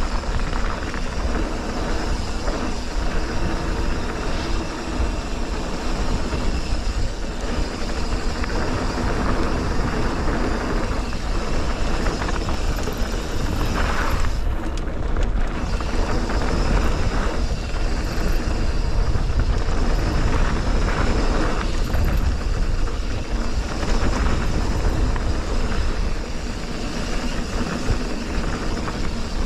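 Mountain bike descending a trail, heard from a camera on the rider: a steady rush of wind on the microphone over the rumble and rattle of tyres on the trail surface.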